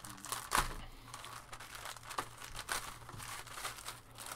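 Thin clear plastic bags crinkling as they are handled and unwrapped, in irregular crackles with the loudest about half a second in.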